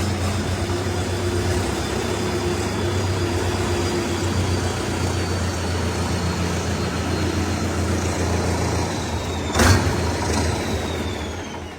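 Sonalika RX 60 tractor's diesel engine running steadily at a low idle, with a sharp loud burst about ten seconds in, then the engine sound fading away near the end.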